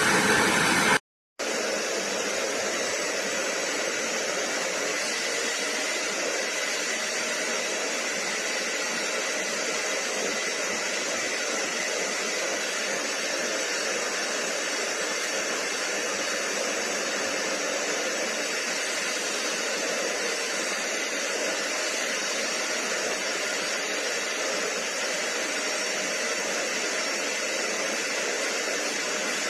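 BISSELL Little Green portable carpet and upholstery cleaner running, its motor and suction making a steady hiss with a faint whine. The sound cuts out briefly about a second in, then continues unchanged.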